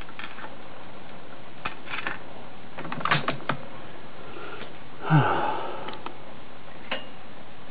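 A few light clicks and knocks, with a quick cluster about three seconds in, then a brief low sound that falls in pitch about five seconds in. No gunshot: the rifle has not yet fired the next shot.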